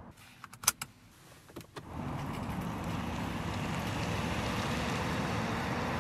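A few clicks and knocks from a car door in the first two seconds. Then, from about two seconds in, the steady rumble of two 3.8-litre V6 SUVs, a Kia Telluride and a Hyundai Palisade, pulling away at low speed, engine and tyre noise together.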